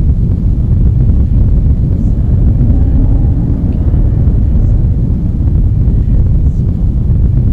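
A loud, steady low rumble with no distinct events.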